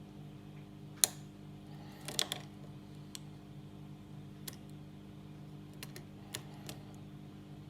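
Small metallic clicks of a lock pick and tension wrench working the pins of a Master Lock 410 lockout padlock: one sharp click about a second in, a quick cluster a second later, then a few lighter, scattered clicks. A steady low hum runs underneath.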